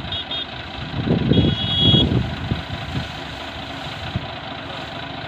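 Swaraj 855 FR tractor's diesel engine running as the tractor drives slowly over rice straw to thresh the grain, getting louder for a moment between about one and two seconds in.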